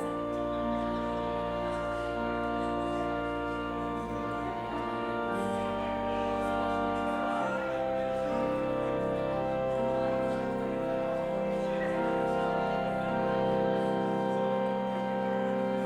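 Slow instrumental music of long held chords that change every second or two.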